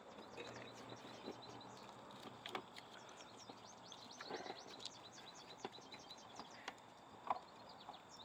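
Faint birds chirping in quick repeated notes, with a few light clicks scattered through.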